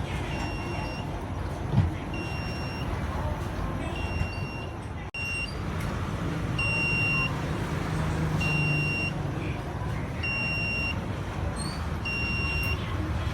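Electronic beeper sounding a short, high, steady tone about every two seconds, over a constant low rumble.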